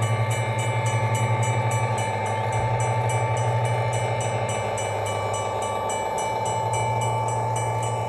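Recorded railroad crossing bell played by a DFPlayer MP3 module through a small 8-ohm speaker, ringing steadily at about four strikes a second while the crossing lights flash. Under it, a steady low hum from the O-scale model diesel train passing the crossing.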